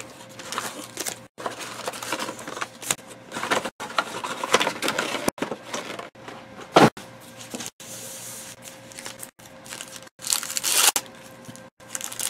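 Foil trading-card packs and a cardboard hobby box being handled: irregular rustling and crinkling, with one loud thump about halfway through as the box is set down.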